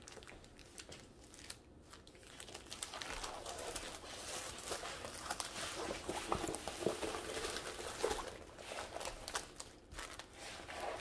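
Plastic wrapping crinkling as it is pulled off a rolled diamond-painting canvas, and the canvas rustling as it is unrolled and smoothed flat by hand. The crinkling builds a couple of seconds in and is loudest through the middle.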